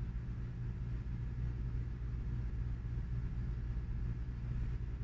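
Steady low hum and rumble of background room noise, unchanging throughout, with no footfalls or impacts.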